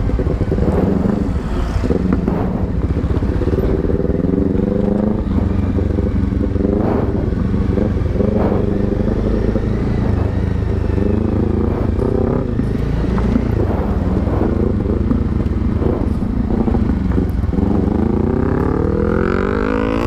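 Honda CBR300R's single-cylinder engine running on the move, its pitch climbing and dropping several times with throttle and gear changes.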